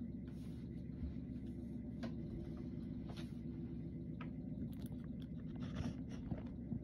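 Steady low hum with faint scattered clicks and a few brief bursts of hiss from a radio scanner scanning with its squelch closed; no radio traffic comes through.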